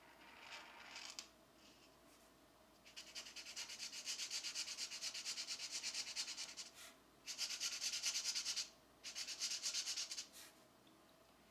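Coloured pencil shading on a coloring-book page: rapid back-and-forth strokes, several a second, in three long runs with short pauses between, after a brief scratch near the start.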